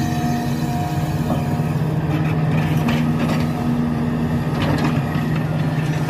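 Large crawler excavator's diesel engine running steadily under load while it digs sand and loads it into a dump truck, with a few faint knocks about halfway through.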